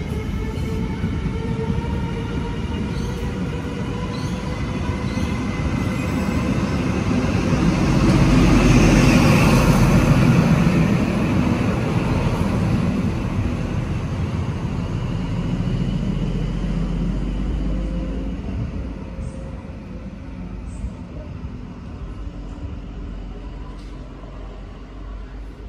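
Passenger train going by, its rumble and wheel noise building to a peak about nine seconds in and then fading away, with a whine that slides down in pitch during the first few seconds.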